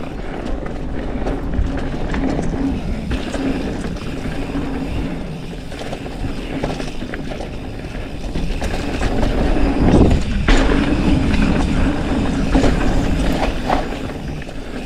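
Mountain bike descending a dirt trail: steady wind rush over the chin-mounted action camera's microphone, tyres running on dirt, and the bike rattling and clicking over bumps, with a louder surge about ten seconds in.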